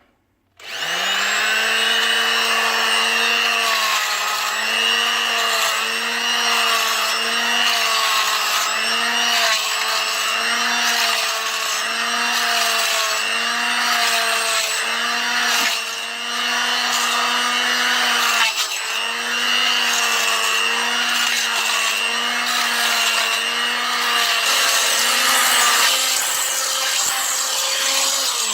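Ozito oscillating multi-tool running with a scraper blade, scraping debris off a concrete floor. It spins up about half a second in, its motor pitch dips and recovers about once a second as the blade is pushed into the floor, and its pitch falls away as it stops at the very end.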